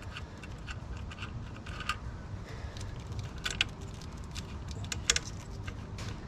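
Light metallic clicks and clinks of hand tools on a 10 mm bolt, scattered irregularly, over a low steady rumble.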